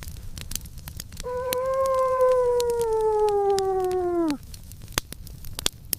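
A single long howl lasting about three seconds. It slowly sinks in pitch and drops off sharply at the end, with scattered sharp clicks around it.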